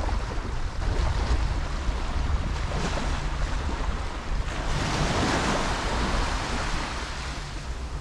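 Surf breaking and washing up the beach, with a wave's rush swelling about halfway through and fading near the end. Wind buffets the microphone with a low rumble underneath.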